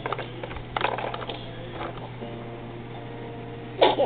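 A baby at play: small knocks and clattering, then one sudden loud burst near the end, the loudest sound here. A faint steady tone runs through the second half.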